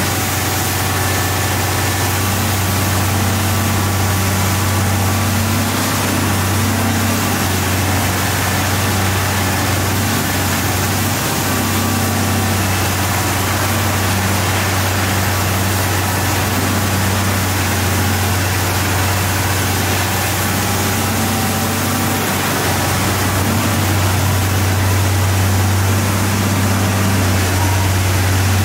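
Komatsu PC1250 excavator's six-cylinder diesel engine running steadily with a deep hum, a steady hiss over it.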